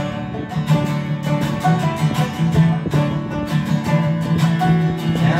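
Acoustic guitar and banjo playing an instrumental passage live, with quick picked notes over a steady low bass line.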